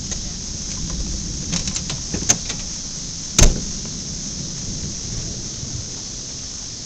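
Approaching thunderstorm: a steady low rumble, with a few light clicks around two seconds in and a single sharp knock about three and a half seconds in.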